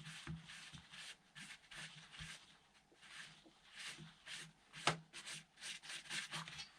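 Faint, irregular rubbing strokes, two or three a second, of a tissue dampened with petrol wiping the outer sidewall of a rubber RC car tyre to clean off stray paint from the lettering.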